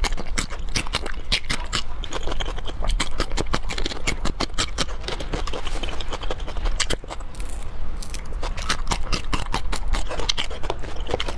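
Close-miked crunching and chewing of crisp raw vegetables: a quick, irregular run of sharp crackling clicks as bites of a green scalloped vegetable slice and broccoli are chewed.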